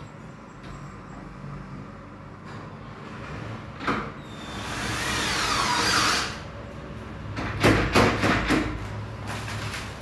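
Wooden door being handled and moved: a sharp click about four seconds in, a swelling rubbing noise lasting about two seconds that stops abruptly, then a quick run of several knocks near the end.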